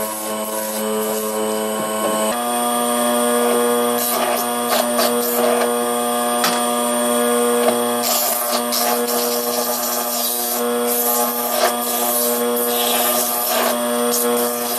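Small bench lathe running with a steady motor hum while sandpaper is held against a spinning wooden ball to sand it smooth, adding a scratchy rubbing that comes and goes.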